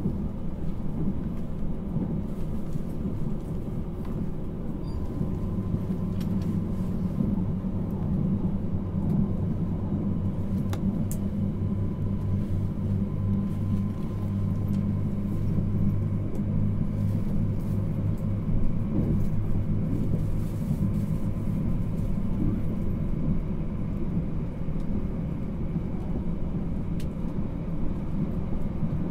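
Interior running noise of a JR Hokkaido 789 series 1000 subseries electric train under way, heard inside the passenger cabin of a motor car: a steady low rumble of wheels on rail.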